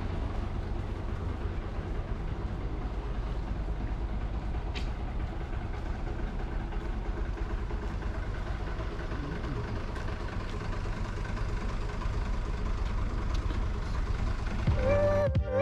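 Steady low rumble of a car on the road, engine and road noise together. Music with clear repeated notes comes in near the end.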